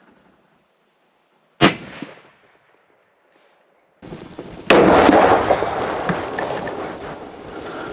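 Two gunshots: a sharp crack about a second and a half in, then a louder shot about three seconds later, its report rolling on and fading over the following seconds.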